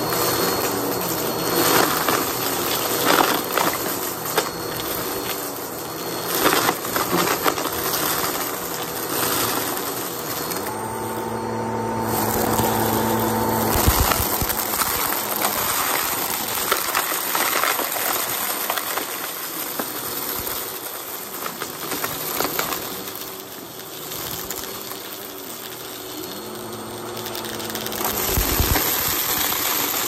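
Bissell CleanView upright vacuum running as it sucks up a deep pile of paper and metallic confetti from shag carpet, the pieces rattling and clicking up into the machine. Twice a humming tone rises for a few seconds, then drops away.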